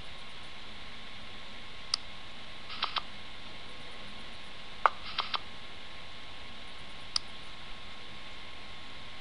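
About eight short, sharp computer clicks, some in quick pairs, the loudest about five seconds in, over a steady hiss with a faint high hum. They come from the online poker client or its mouse while the turn and river cards are dealt and bets are made.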